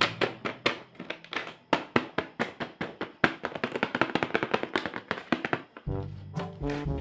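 A rapid run of sharp taps and clicks, several a second. About six seconds in, background music with a bass line and brass notes starts.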